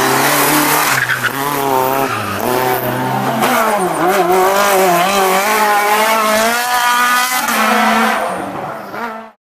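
Rally cars' engines revving hard on a tarmac stage: first a Renault Clio, then a Renault Megane Kit Car, their pitch rising and falling with throttle and gear changes. The sound fades and cuts off near the end.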